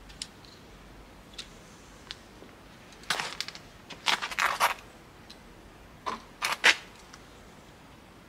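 Hand work on wiring: a few light clicks, then two clusters of short scraping and rattling bursts, about three seconds in and again about six seconds in.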